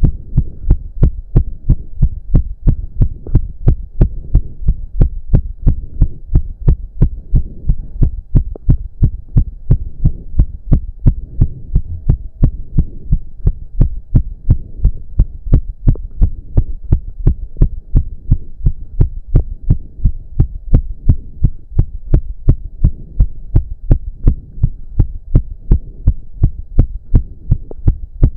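A man's heart beating fast and hard, a little over two beats a second, racing from an intense cardio workout.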